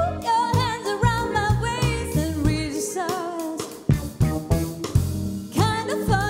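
Live soul-pop band playing: a female lead voice sings a long, wavering, ornamented line over drum kit, bass, electric guitar and keyboards. The voice drops back a little past halfway, leaving the band and drums, then comes in again with a rising note near the end.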